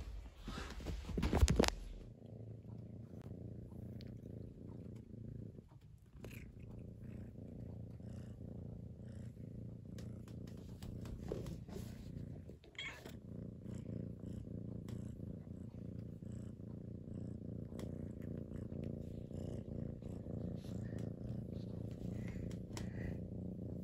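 A couple of seconds of loud rustling, then a domestic cat purring steadily, with two brief breaks.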